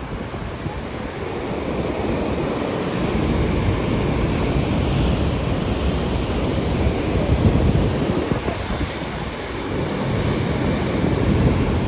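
Steady rushing of water jetting from a dam outlet and crashing into the river in the canyon below, mixed with wind buffeting the microphone.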